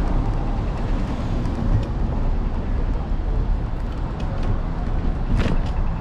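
Steady low road and wind rumble from an electric scooter riding through city traffic, with a single sharp clack about five and a half seconds in.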